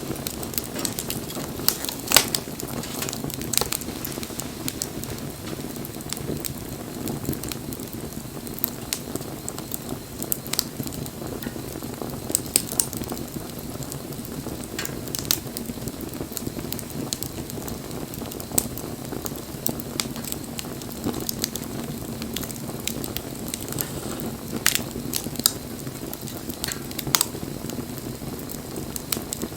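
Wood campfire burning: a steady low rumble of flames with frequent, irregular sharp pops and crackles from the burning wood.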